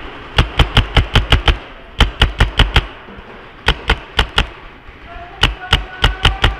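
Paintball marker firing in four quick bursts of about five to seven shots each, at roughly seven or eight shots a second, with short pauses between the bursts.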